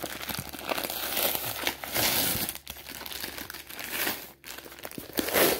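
Plastic shipping wrap and paper packing crinkling and rustling as they are handled and pulled from a shipping box, unevenly, loudest near the end.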